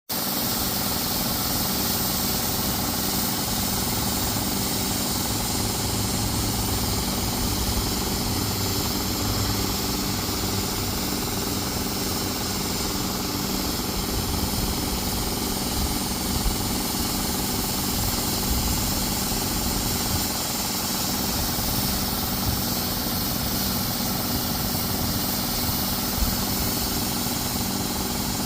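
Home snow-making machine running steadily: a constant mechanical hum with a high hiss over it.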